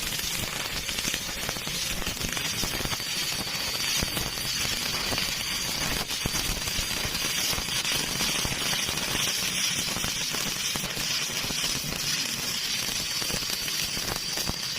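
Electric arc welding: the arc crackling and sizzling steadily and continuously, with a thin high whine running over it.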